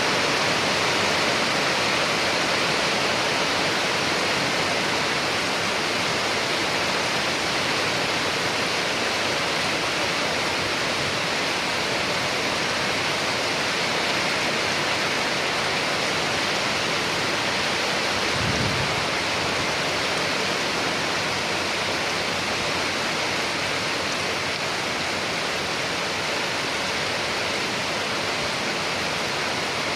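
Steady rain: an even, unbroken hiss. About two-thirds of the way through there is one brief low thump.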